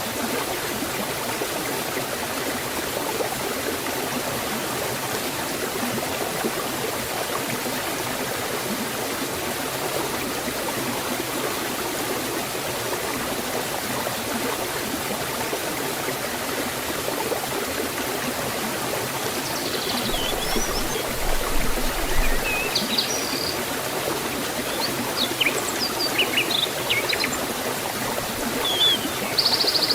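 Waterfall water flowing steadily in a forest stream, with birds chirping now and then in the last third.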